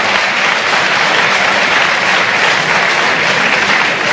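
A large audience applauding steadily in a big hall.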